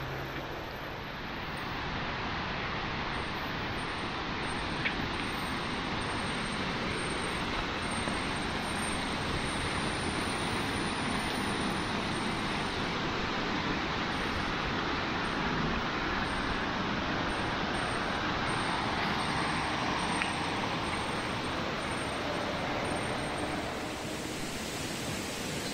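Steady rushing of a jungle stream, an even hiss of flowing water that eases slightly near the end.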